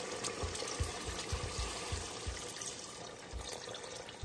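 Water running into a pot of frying pork leg and masala: a steady watery hiss with a few soft low knocks.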